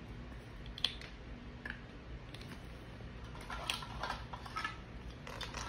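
Light clicks and clatter of plastic toy kitchen pieces being handled: a plastic lid set on a toy pot, then plastic toy food rummaged in a plastic basket. Scattered single clicks, with a quicker run of them about three and a half seconds in.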